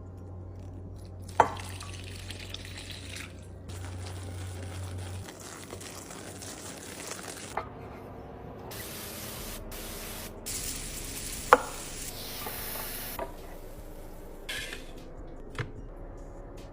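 Household items being handled and set down: four sharp clicks or knocks spread through the stretch, over stretches of hiss like water or spraying, and a low hum in the first few seconds.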